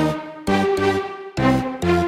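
Background music: an electronic tune of short pitched notes struck about twice a second.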